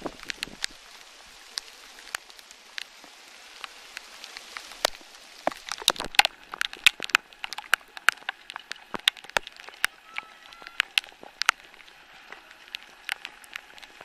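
Rain falling: a steady hiss with many irregular sharp taps of drops striking close to the microphone, thickest in the middle.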